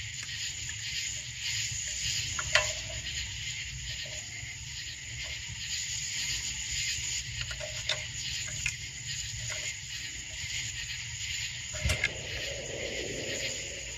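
Steady outdoor insect chorus, a continuous high trilling, over a low background rumble, with a few light handling knocks and clicks.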